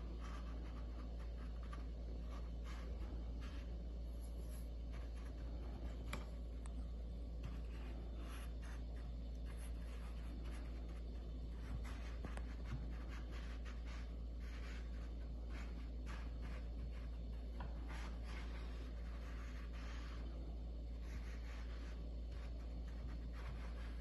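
A metal spoon scraping and dabbing a white paste onto the paper of a toilet paper roll, with its spoonfuls taken from a glass dish. This gives irregular soft scratchy rubbing strokes over a steady low hum.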